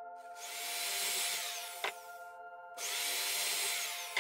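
Electric hand drill boring holes through a plywood disc: one run of about two seconds, a short pause, then a second run starting just before the end. Faint steady background music underneath.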